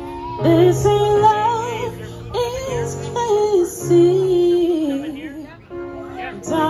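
A woman singing a slow song live, holding notes with vibrato over steady accompanying chords.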